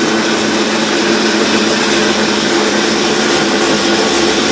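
Colormaq LCA12 top-load washing machine running steadily with a loud grinding gear noise from its drive as it tries to spin. The cause is a faulty connector between the upper and lower wiring harness that arcs and shorts, powering the motor and the shift actuator too early.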